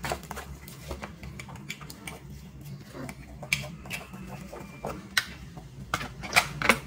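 Light plastic clicks and knocks from handling a DJI Osmo Action action camera and plugging a USB charging cable into it. The clicks are scattered and irregular, with a couple of sharper ones close together near the end.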